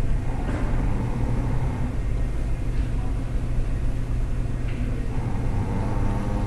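Steady low rumbling hum, with a few faint short sounds over it.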